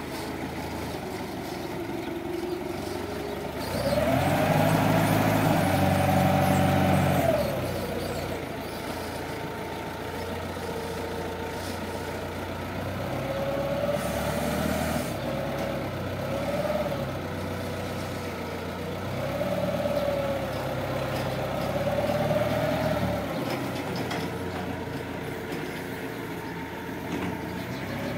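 Forklift engine running and revving up and down as the forklift carries a pallet and sets it on a truck bed. The loudest rev comes about four seconds in and holds for about three seconds, and several shorter rises follow.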